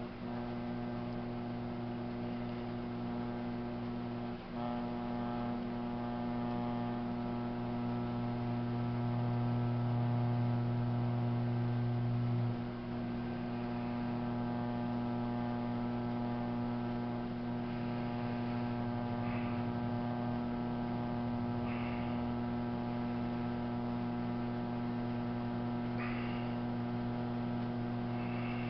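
Steady electrical hum of an electric potter's wheel motor turning, its low tone swelling louder for a few seconds and dropping back about twelve seconds in. A few faint, short scrapes of hands working the wet clay come in the second half.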